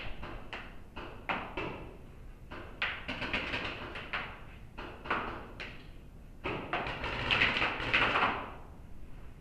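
Paintball markers firing in a large echoing hall: irregular sharp pops, some single, some in quick runs. A denser, louder run comes about seven to eight seconds in.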